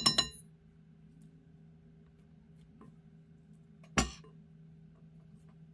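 Chopsticks stirring a flour coating in a ceramic bowl, striking the bowl twice: a clink that rings briefly at the start, and a sharper knock about four seconds in. A steady low hum runs underneath.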